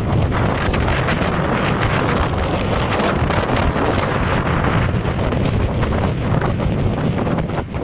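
Strong wind blowing hard and buffeting the microphone, a loud, steady rush with constant flutter.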